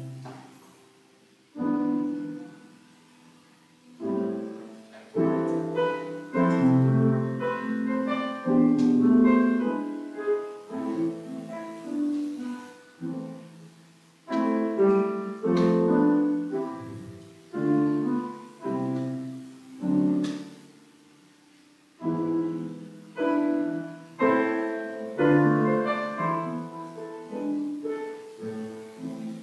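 Grand piano playing a slow piece in phrases, the notes ringing and fading, with the playing dying away briefly about three times between phrases.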